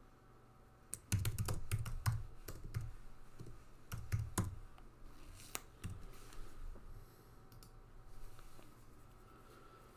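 Typing on a computer keyboard: a run of key clicks for a few seconds, thinning out to a few scattered taps in the second half.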